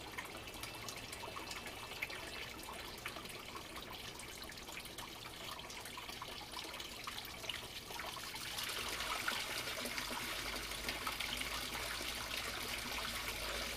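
Water from a bell siphon's drain pouring out of a PVC pipe into the tank below, splashing onto the surface. The flow grows louder about eight or nine seconds in as the drain jet strengthens, with the siphon running in full drain.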